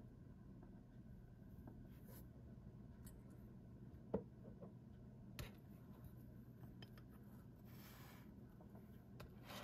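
Quiet handling of a metal Parker 50 Falcon fountain pen: a few small clicks and taps, the sharpest about four seconds in, and a short soft rub near the end as the pen is set on an acrylic stand, over a faint steady hum.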